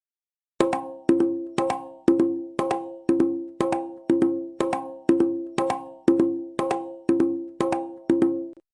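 A drum struck in a steady beat of two strokes a second, about sixteen strokes in all, each ringing briefly with a clear pitch. It starts about half a second in and stops just before the end.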